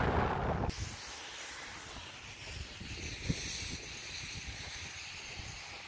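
Wind buffeting the microphone for the first moment, then a steady rush of air with a faint low rumble and a single light knock about three seconds in.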